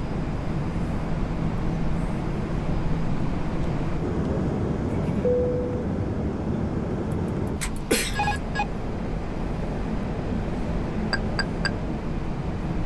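Steady rush and hum of air and engine noise on the flight deck of an Airbus A380 on approach. A short tone sounds about five seconds in, a brief cluster of clicks and blips about eight seconds in, and three short high beeps near the end.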